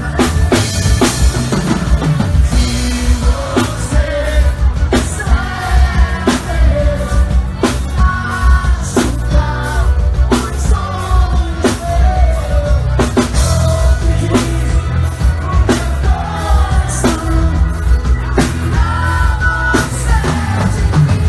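Live forró band playing: a singer's melodic vocal over heavy bass and a drum kit keeping a steady, even beat.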